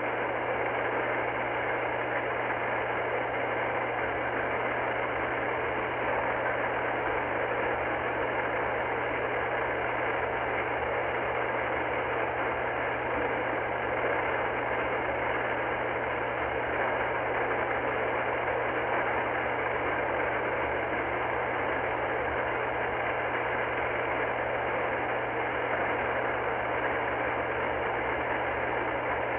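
Icom IC-R30 receiver's speaker giving steady static hiss on 27.385 MHz lower sideband with no station transmitting, the hiss cut off above the voice band, over a steady low hum.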